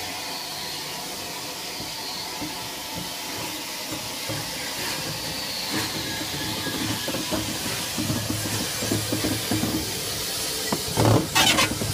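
A steam train: a steady hiss of steam over the train's running sounds, growing louder over the second half, with sudden loud bursts near the end.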